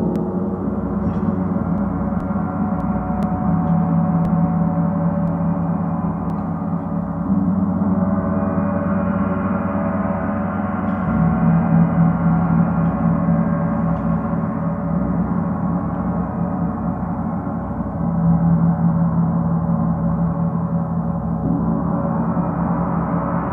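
A large gong played continuously, a sustained wash of many overlapping ringing tones, strongest in the low range, swelling louder every few seconds as it is struck or rubbed again.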